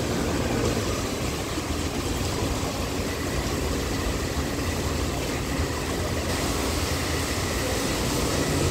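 Steady hum and hiss of a metro train standing at a platform with its doors open, its air-conditioning and on-board equipment running under the station's background noise. A faint high steady tone joins about three seconds in.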